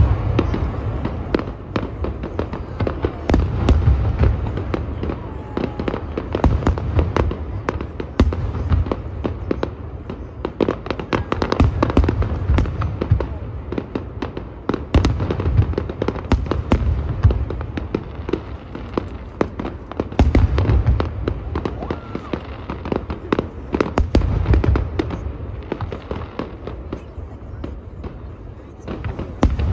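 Aerial fireworks display: deep booms of shells bursting every few seconds, with dense crackling and popping of stars between them.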